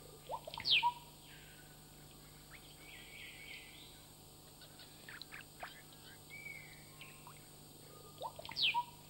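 Forest birds calling: a sharp falling whistle followed by a few short lower notes, about a second in and again near the end, with scattered short chirps between.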